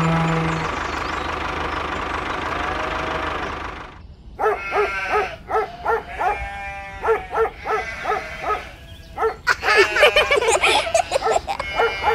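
Animal calls, like barking and bleating, in quick succession from about four seconds in, after a steady noisy stretch.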